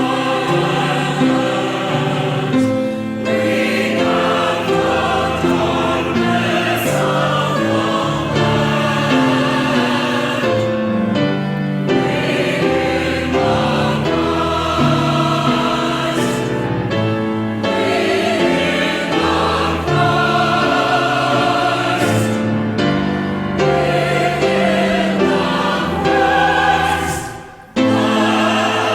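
Church chancel choir singing with sustained, held chords, with a short drop in volume near the end before the next phrase comes in sharply.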